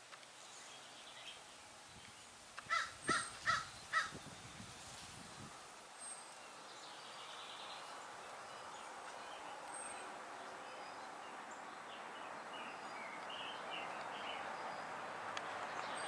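A crow cawing four times in quick succession about three seconds in, harsh calls a little under half a second apart. After that a steady outdoor background rush slowly grows louder, with a few faint small-bird chirps.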